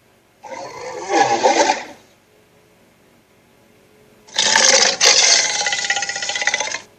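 Two harsh vocal sound effects for a Stikbot character: a short rough one starting about half a second in and lasting over a second, then a longer one from past four seconds, held about two and a half seconds at a steady pitch.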